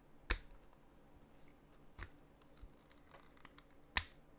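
A few sharp plastic clicks and taps from a wireless-charging power bank being handled while its fold-out stand is pried open: one about a third of a second in, one at two seconds and one near the end, with fainter ticks between.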